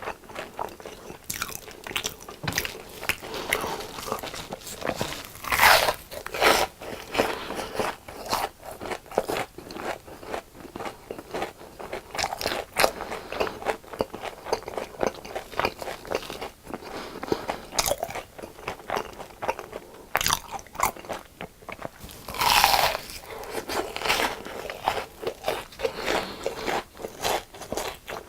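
Close-up, crisp crunching of deep-fried food being bitten and chewed, with a rapid run of crackling crunches and two louder bites, about six seconds in and again about 23 seconds in.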